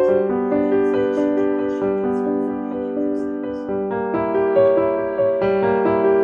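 Background piano music, a gentle melody of held notes changing at an even pace.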